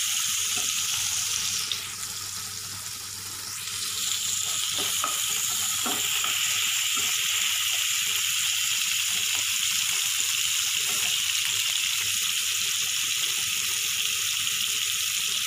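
Prawns and chopped tomato sizzling steadily in hot mustard oil in a nonstick frying pan, stirred now and then with a silicone spatula. The sizzle drops quieter for a moment about two seconds in, then comes back up.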